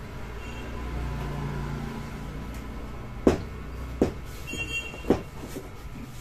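Three sharp taps or clicks about a second apart over a steady low background hum, from hands handling tools on a TV panel on a workbench.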